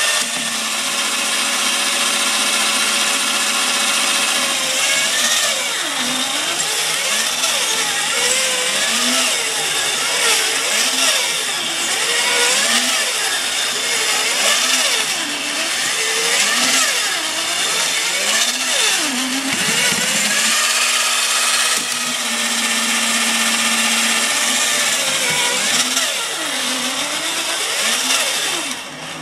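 Robot 2001 toy robot's battery motor and gearbox whirring as it walks. The whine wavers up and down about once a second, and is steadier near the start and again about two-thirds of the way through.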